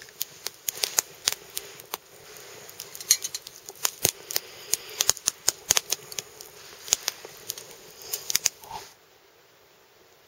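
Small campfire of sticks crackling, with frequent irregular sharp pops and snaps over a faint hiss; the crackling cuts off suddenly near the end, leaving only a low hiss.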